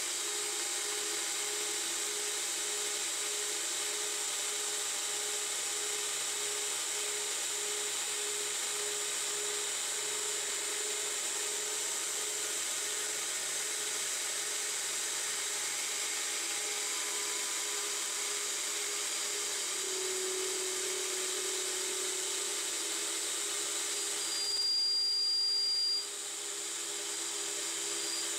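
CNC-converted 9x20 benchtop metal lathe running steadily while a boring bar cuts inside a spinning bearing adapter. A short louder stretch with a high whine comes about 25 seconds in.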